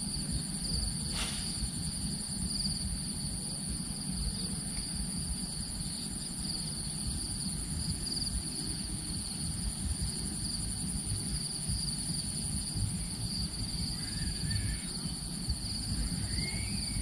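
Steady, high-pitched insect chorus that keeps on at two pitches, over a low rumble. A single sharp click comes about a second in.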